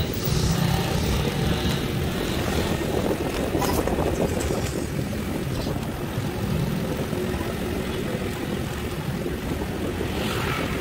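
Honda Astrea Grand underbone motorcycle's small single-cylinder four-stroke engine running at a steady cruising pace while riding, mixed with wind and road noise.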